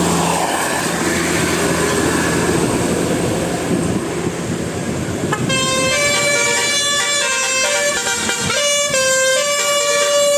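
Engine and traffic noise, then about five and a half seconds in a bus's multi-tone telolet horn starts playing a tune of short and held notes that step between several pitches.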